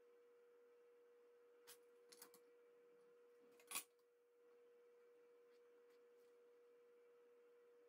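Near silence with a faint steady hum, broken by a few light clicks and one sharper tap about halfway through as a plastic protractor and pencil are set down on wooden boards.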